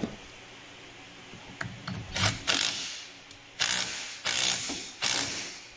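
Hand ratchet clicking in four or five short bursts, starting about two seconds in, as it runs a wiper arm's retaining nut down onto its pivot stud.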